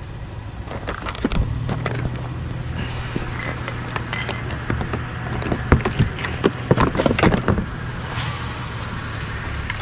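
Scrap metal being handled: a string of knocks and clanks, loudest in the middle, over a steady low hum that starts about a second in.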